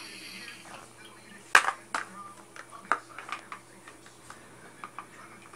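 Scattered sharp clicks and knocks of hard plastic toys being handled and knocked together by a baby, the loudest about a second and a half in.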